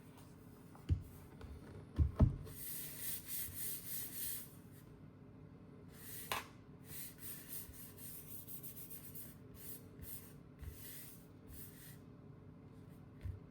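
Packaging being handled by hand: short rubbing and rustling strokes of paper or wrap, with a few soft knocks of the box or laptop being set down, two of them close together about two seconds in.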